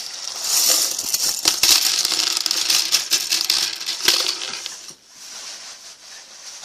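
Plastic K'nex pieces clattering and rattling against each other as a hand rummages through a pile of them; a dense clatter for about five seconds that then dies down.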